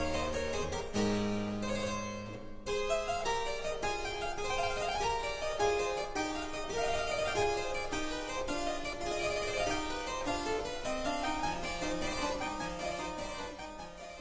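Harpsichord music: a quick run of plucked notes over held bass notes, dipping briefly a little over two seconds in and fading near the end.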